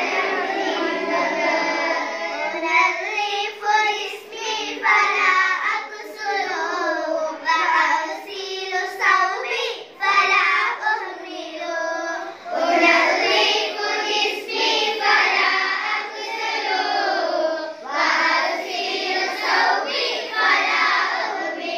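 A small group of young girls singing together in unison from song sheets, a children's song in Arabic about cleanliness, with short breaks between lines.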